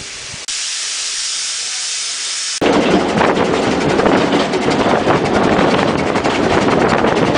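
Steam hissing from a two-foot-gauge 0-4-4 Forney tank steam locomotive, a steady high hiss. About two and a half seconds in it turns suddenly much louder: a rough, full steam hiss with a fast rattle.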